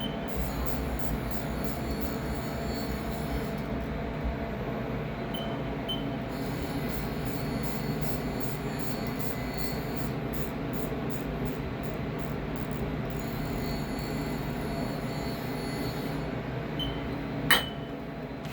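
Steady hum of a Haas vertical CNC mill and its surroundings, with a few short high beeps and faint rapid ticking. A single sharp click comes near the end.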